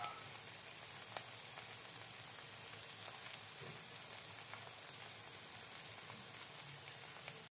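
Sauce and oil sizzling steadily in a pan around a fried milkfish tail, with a couple of sharp pops. It cuts off suddenly near the end.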